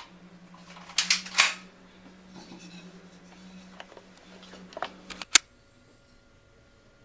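Sharp plastic clicks and short puffs from Nerf blasters being worked and fired: a quick cluster about a second in, then a few more clicks, the last and sharpest a little past five seconds. A steady low hum underneath cuts off right after that last click.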